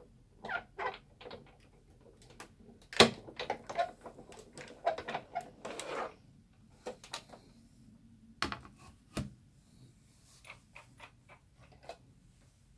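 Manual crank die-cutting machine being turned by hand as the plates and die roll through, a run of clicks and creaks, loudest about three seconds in. A couple of sharper knocks follow as the plates are set down.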